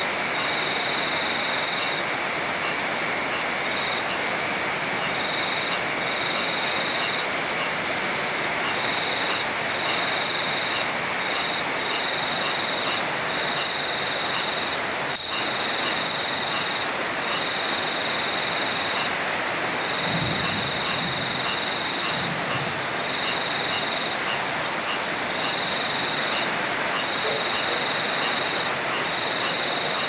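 Heavy rain and a rushing river: a steady, dense hiss of water, with a high thin trill that keeps starting and stopping over it.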